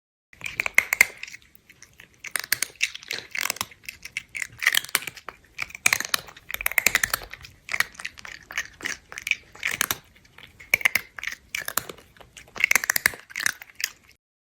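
Crunchy chewing in repeated bursts with short pauses: a cat eating something crisp, close to the microphone.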